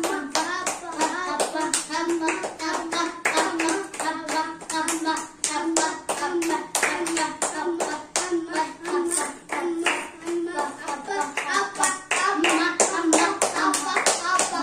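Children clapping their hands in a quick, steady rhythm while chanting in a sing-song voice.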